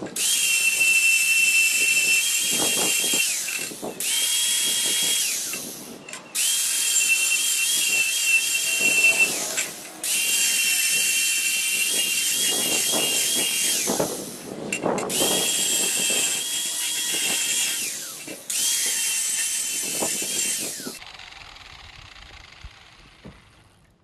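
A power tool grinding the edge of a steel lawn mower blade to sharpen it. It comes in about six runs of a few seconds each, with a steady high whine and a hiss of metal being ground. Near the end it winds down and fades.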